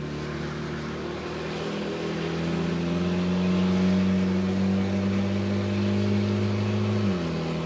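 Car engine held at high, steady revs, its pitch creeping up slightly and getting louder, then dropping about seven seconds in, as when a drift car is held in a slide on the throttle.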